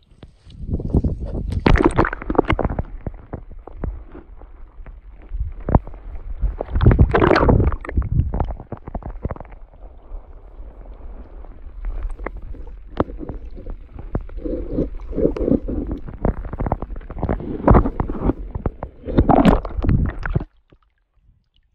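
Muffled water sloshing and gurgling around a camera dipped under the canal's surface, with irregular knocks and thumps and louder swells about 2, 7 and 19 seconds in. It cuts off suddenly about a second before the end.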